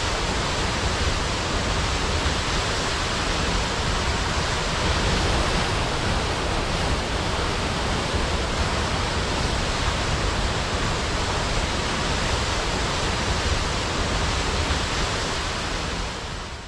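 Waterfall: a steady, dense rush of falling water that fades out near the end.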